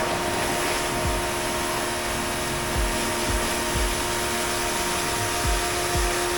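Dylect 1900W electric pressure washer running steadily: a motor hum under the hiss of the spray, with a few short low thumps at uneven gaps.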